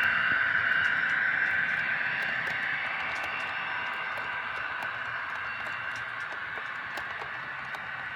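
HO scale EMD SD40-2 models' ESU LokSound decoders playing diesel prime-mover sound through their small speakers, with many light irregular clicks from the train's wheels on the track. The sound slowly fades as the train moves away.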